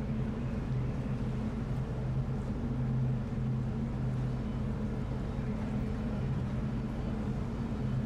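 Ship engines droning steadily in a constant low hum over a background rush, as the vessel manoeuvres onto its berth.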